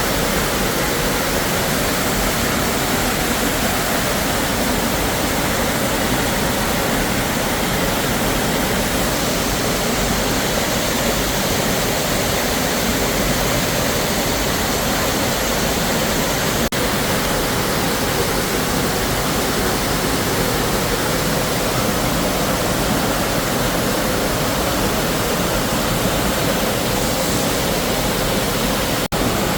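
Waterfall rushing: a steady, loud wash of falling water.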